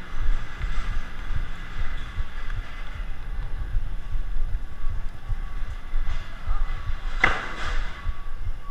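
Warehouse-store background with constant low rumbling noise from the moving camera, faint voices, and a single sharp knock about seven seconds in.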